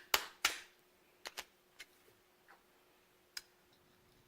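Sharp taps on an ATV axle's CV joint, knocking the tilted cage to work a ball bearing into place: two loud strikes just after the start, then a few lighter clicks spread over the next few seconds.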